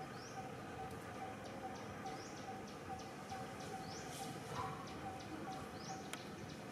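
Background birds calling: quick rising chirps and short high ticks over a short low note repeated evenly about two or three times a second, against a steady outdoor hum.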